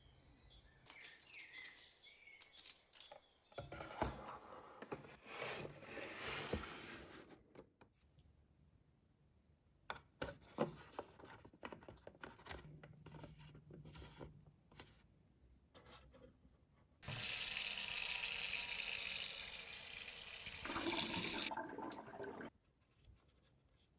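Small plastic miniature kitchen pieces being handled: rustling and scattered light clicks and taps. Then a loud, steady hiss like running water starts suddenly, lasts about four seconds near the end, and cuts off sharply.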